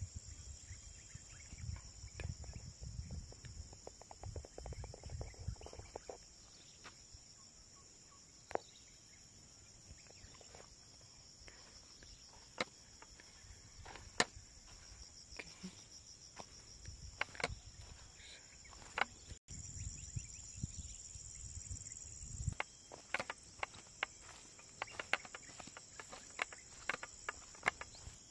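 A steady high-pitched drone of insects runs throughout. Scattered sharp clicks and some low rumbling bumps sit over it, the clicks thickest in the last few seconds.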